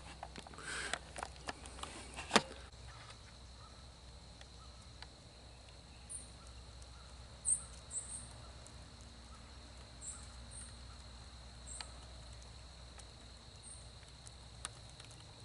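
Quiet woodland ambience: rustling handling noise and a sharp click in the first couple of seconds, then a faint steady high whine with short, very high chirps every second or two, from small birds.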